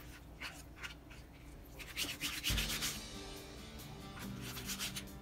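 A kitchen knife slicing raw skirt steak on a cutting board: short scraping strokes, a few spaced ones, then a quicker run of them. Background music fades in about halfway through.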